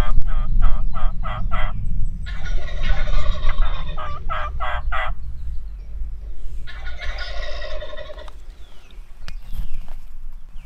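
Wild turkey gobblers calling at close range: a quick series of about seven short yelping notes, then loud rattling gobbles, one after about two seconds and another about seven seconds in. A steady low rumble runs underneath.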